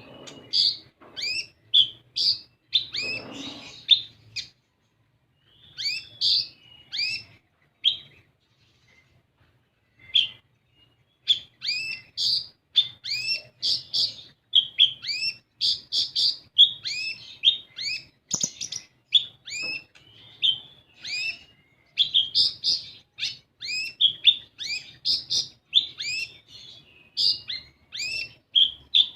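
Kolibri ninja sunbird singing: rapid runs of high, sharp chirps and upswept notes, pausing briefly about a third of the way in, then resuming in a dense, fast series.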